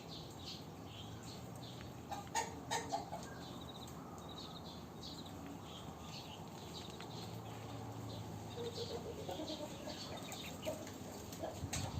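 Aseel chickens clucking: a few sharp clucks about two seconds in and a run of short clucks around nine seconds in. Small birds chirp high and steadily behind them.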